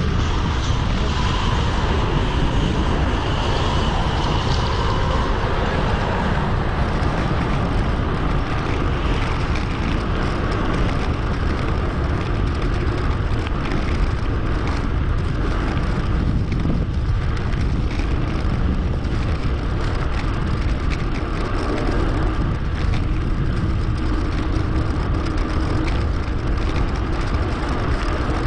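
Steady rushing wind and road noise on an action camera's microphone while riding a mountain bike, strongest in the low rumble.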